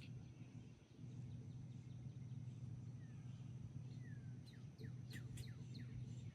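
Wild birds chirping outdoors, with a run of quick falling chirps through the second half, over a faint steady low hum.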